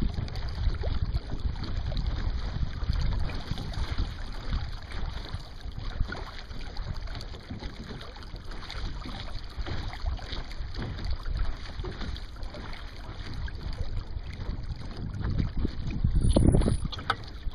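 Wind buffeting the microphone over water rushing and slapping along the hull of a Sunfish sailboat under sail, louder for a moment near the end.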